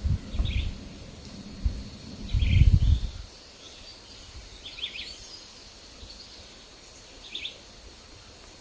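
Small forest birds giving short chirps every couple of seconds over a steady insect drone. Wind rumbles on the microphone in two gusts in the first three seconds, the second the loudest.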